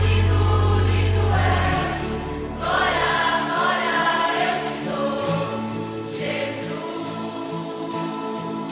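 Christian worship song with a choir singing over the band. A deep bass drops out a little under two seconds in, leaving the voices over a lighter accompaniment.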